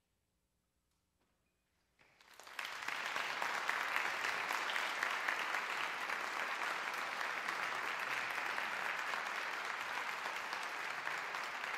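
Near silence, then audience applause breaks out about two seconds in and carries on steadily.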